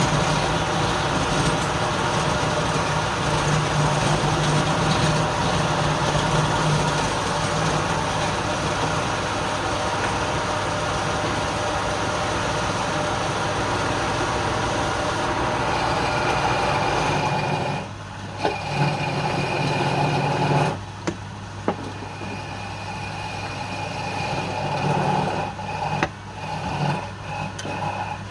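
Woodturning lathe running, a steady motor hum under dense workshop noise. About two-thirds of the way through the noise drops away and then returns in short bursts.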